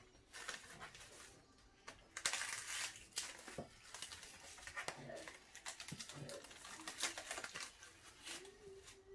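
Plastic cling film crinkling and crackling in quiet, irregular rustles as it is stretched over a glass dish and pressed down around the rim.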